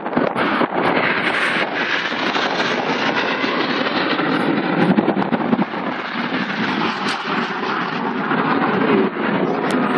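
BAE Hawk T1 jets flying over in close formation: a loud, steady rush of jet engine noise.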